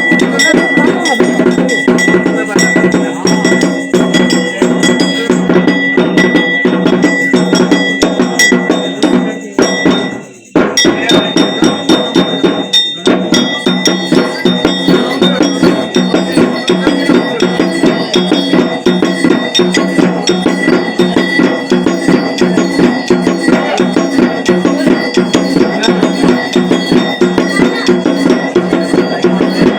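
Metal ritual bells rung rapidly and without a break, with other percussion, during Hindu worship. There is a short drop about ten seconds in before the ringing resumes.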